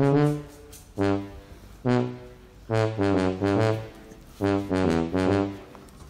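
Background music: short, low brass-like notes, in the manner of a trombone, played in little groups with brief gaps between them.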